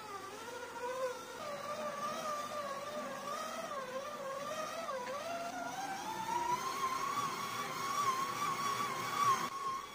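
Electric stand mixer motor running while its dough hook kneads dough, a steady whine that wavers in pitch as the load shifts and climbs gradually about two-thirds of the way through.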